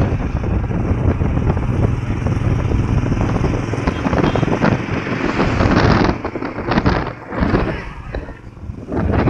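Wind buffeting the microphone over the rushing road noise of a moving vehicle, easing and gusting unevenly for a few seconds from about six seconds in.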